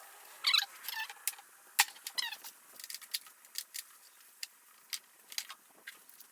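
Irregular light metallic clinks and taps of hand tools and small engine parts being handled, some ringing briefly, with the loudest strikes in the first two seconds.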